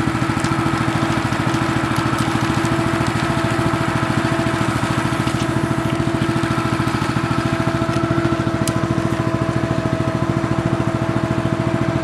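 An engine running steadily at an even idle, with a rapid, regular pulsing and a constant hum.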